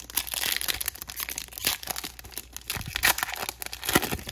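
Foil wrapper of a 2021 Panini Chronicles football card pack being torn open and crinkled by hand: a dense run of crackles with sharp snaps, the loudest about three and four seconds in.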